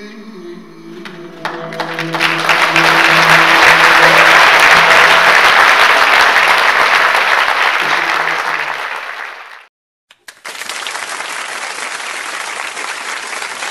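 The ensemble's last held note dies away as a concert audience breaks into loud, sustained applause, which fades and cuts off about ten seconds in. After a brief gap a second, quieter stretch of steady applause follows.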